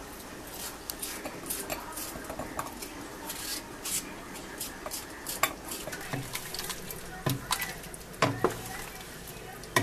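A small kitchen knife cutting a peeled potato into cubes over a ceramic plate, the blade clicking against the plate at irregular moments. Near the end come a few louder knocks of a wooden spoon against a steel cooking pot as the stew is stirred.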